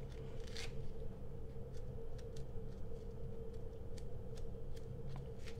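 Small kitchen knife cutting and scraping the white pith off a peeled orange: faint, scattered clicks and scrapes, over a steady background hum.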